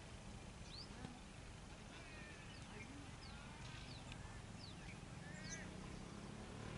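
Faint bird calls: a handful of short, high chirps scattered over a quiet outdoor background.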